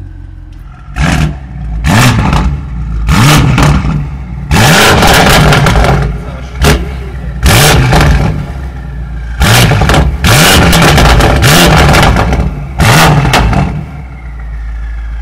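Tuned, roughly 1000 PS BMW F90 M5's twin-turbo V8, freshly cold-started, heard at the exhaust tips being free-revved in about ten sharp blips with idle between. One blip is held for over a second. The engine settles back to a steady idle near the end.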